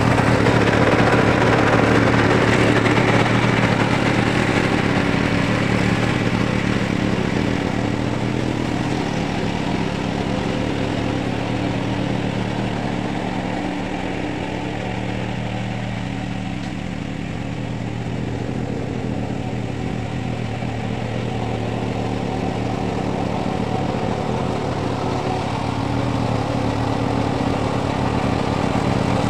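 Ogawa XT600 self-propelled flail mower running steadily as it mulches brush, its 15 hp, 420cc single-cylinder OHV engine held at a constant working speed. The sound is loudest at first, fades in the middle as the machine moves away, and grows louder again near the end as it comes back.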